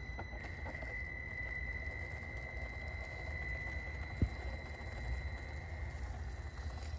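Traxxas TRX-4M mini RC crawler's electric drivetrain whining steadily at a high pitch as it crawls slowly over rocks, with a low rumble underneath and a single sharp knock about four seconds in.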